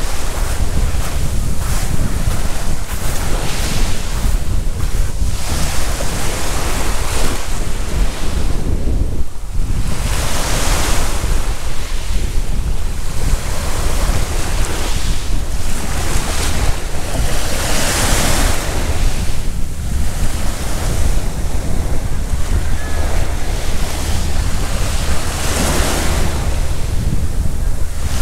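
Sea waves washing up onto a beach of rhodolith gravel, the hiss of each wash swelling and fading every few seconds. Strong wind buffets the microphone with a constant low rumble.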